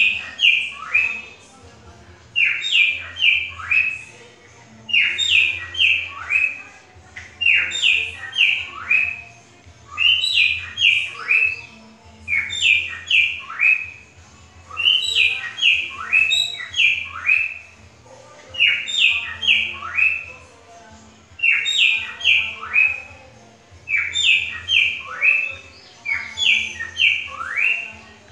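Cockatiel singing an imitation of the trinca-ferro (green-winged saltator) song: a short phrase of four or five quick, falling whistled notes, repeated over and over about every two and a half seconds.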